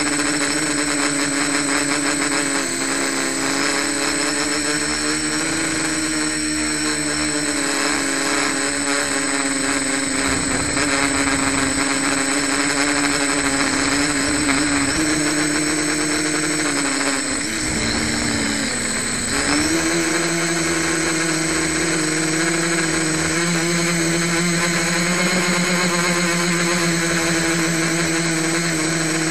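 Homemade quadcopter's four brushless motors and propellers whining steadily, its props not yet balanced, heard up close from its onboard camera. A bit over halfway through the pitch sags for a couple of seconds, then comes back slightly higher as the throttle changes.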